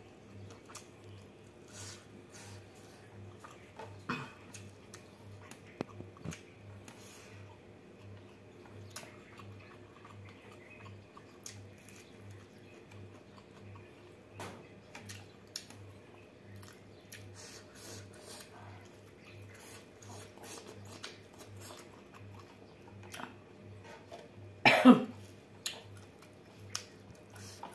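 Close-miked eating sounds: soft chewing and small mouth clicks as rice and prawns are eaten by hand, then one loud cough near the end.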